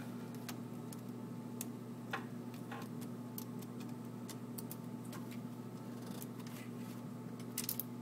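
Scattered small clicks and light metal taps from a screwdriver turning screws in a projector's sheet-metal power-supply bracket, with a quick run of clicks near the end, over a steady low hum.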